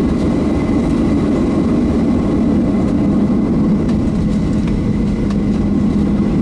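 Cabin noise of a Boeing 737-700 taxiing, heard from a seat over the wing: the steady low rumble of its CFM56-7B jet engines at taxi power, with a faint high steady whine.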